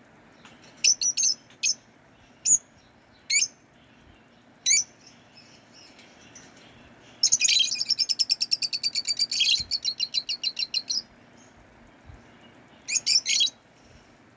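Lovebirds chirping: sharp, high-pitched chirps, singly and in quick clusters of three or four, with a fast rhythmic run of chattering notes, about six a second, lasting around four seconds in the middle.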